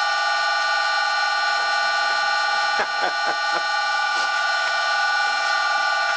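Old lathe spindle running at a steady speed, driving a drill bit into a nylon workpiece: a steady whine of several even tones, with a few sharp clicks about halfway through.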